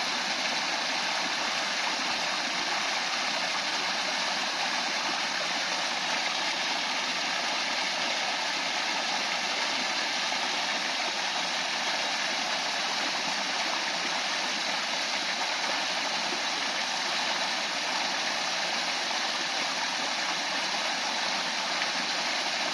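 A stream of water flowing over and around stones: a steady, unbroken rush of water.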